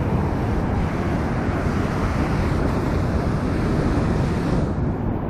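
Waves breaking and washing over a rocky shore, with wind rumbling on the microphone. A steady, loud noise that eases slightly near the end.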